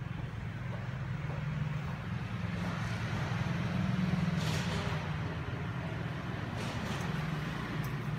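Honda Today 50 EFI scooter's 50 cc fuel-injected single-cylinder engine idling steadily, a low even putter that swells slightly about halfway through.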